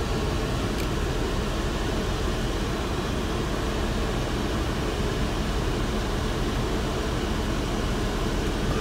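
Mercedes W124 electric auxiliary cooling fans running at high speed, switched on by hand to cool the AC condenser: a steady, even rush of air.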